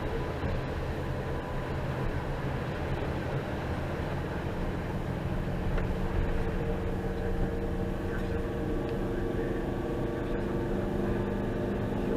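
A vehicle engine running steadily with a low rumble. Its steady hum becomes more distinct about halfway through.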